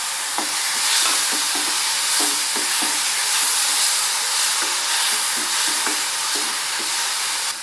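Onions and ginger-garlic paste sizzling in hot oil in a metal kadai, with a steady hiss. A metal spoon stirs them, scraping and knocking against the pan in short irregular strokes.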